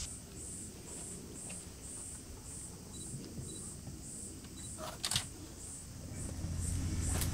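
Cicadas calling in an even high-pitched pulse, about three pulses a second. Two sharp clicks come about five seconds in and again near the end, and a low rumble builds in the last second.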